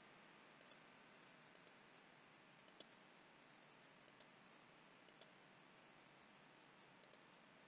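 Near silence with a few faint computer mouse clicks, spaced a second or more apart.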